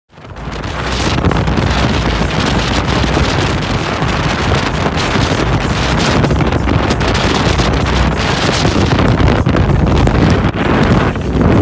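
Heavy wind buffeting a phone's microphone aboard an open boat, with a steady low rumble underneath; it swells in over the first second and then holds.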